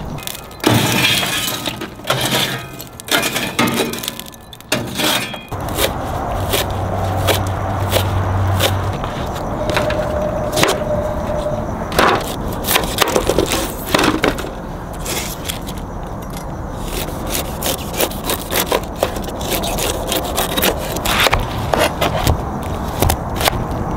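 Food-prep handling noise: a knife cutting through pineapple and knocking on a plastic cutting board, with aluminium foil pans being moved. It comes as a run of irregular sharp knocks and clicks.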